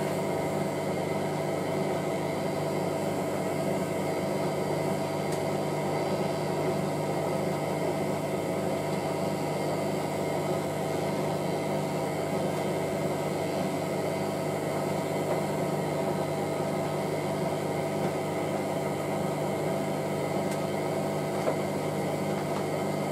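Hotpoint 9530W washing machine running with its drum turning, its brushed motor giving a steady hum with several tones that holds even throughout.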